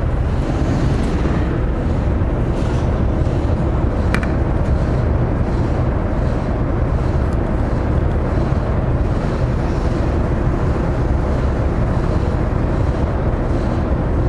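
Car ferry's diesel engines running with a steady low rumble while the ship lies at its berth, and a single short click about four seconds in.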